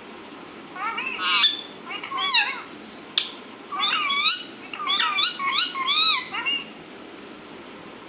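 Indian ringneck parakeet chattering: groups of short, squeaky calls that slide up and down in pitch, from about a second in until near the end, with one sharp click about three seconds in.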